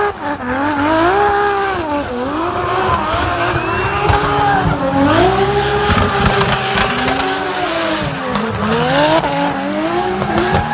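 Drift car's engine revving hard, its pitch rising and falling repeatedly as the driver works the throttle through the corners, held high for a stretch midway. Tyres squeal as the car slides.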